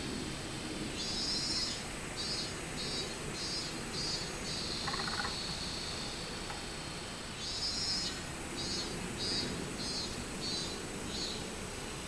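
Minmin cicada (Hyalessa maculaticollis) singing: two song phrases, each a drawn-out opening note followed by a run of about half a dozen pulsed 'min-min' notes, roughly two a second. The second phrase starts about seven and a half seconds in.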